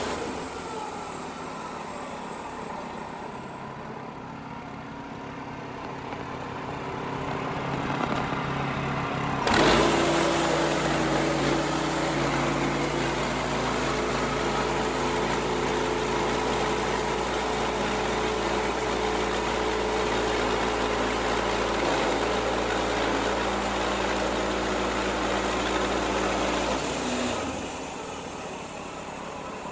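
WoodMizer LX55 bandsaw mill's gas engine running steadily while sawing a white oak log into slabs. The sound grows louder over the first several seconds, jumps sharply about nine seconds in, and changes abruptly again near the end.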